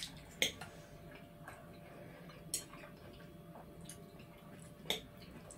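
Metal forks clicking against plates during a meal, a handful of short sharp clicks, the loudest about half a second in and near the end.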